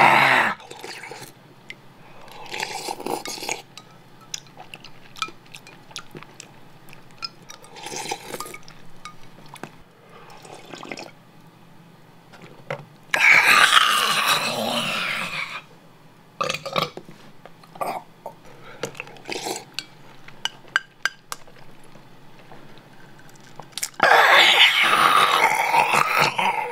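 A man spoons up ramen broth. A metal spoon clicks against a ceramic bowl amid soft slurps, with a loud gag at about the halfway point and another loud gagging stretch near the end.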